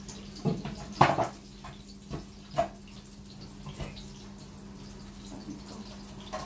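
Kitchen clatter: a handful of short knocks and clinks of dishes and utensils, the loudest about a second in, over a steady low hum.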